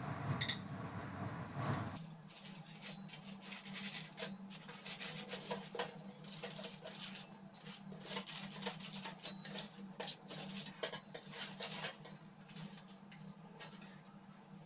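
Metal tongs scraping and gripping on a foil-lined baking tray, the aluminium foil crinkling in quick, faint, irregular rustles as baked pastry patties are lifted off. A steady low hum runs underneath.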